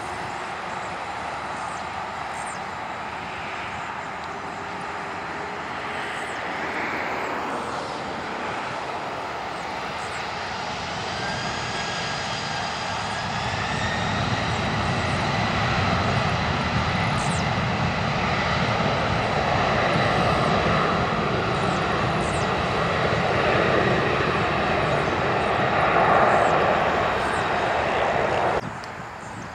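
Boeing 767-300F freighter's twin turbofan engines spooling up for takeoff. A rising whine comes about twelve seconds in, then a steady jet roar grows louder as the aircraft accelerates down the runway, and the sound cuts off suddenly near the end.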